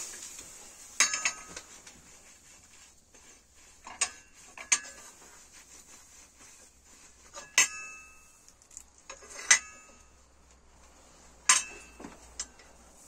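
Steel clinking on steel as the blacksmith handles the cleaver blade and tongs at the anvil: sharp, ringing metallic clinks, one every one to three seconds, with quiet between them.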